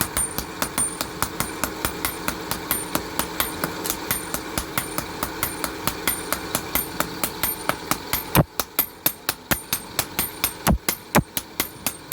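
Blacksmiths' hammers striking hot axe steel on an anvil in a fast, even rhythm of about four to five blows a second, each with a bright metallic ring. A little past two-thirds of the way through, the steady background hum drops away and the blows come louder and more spaced.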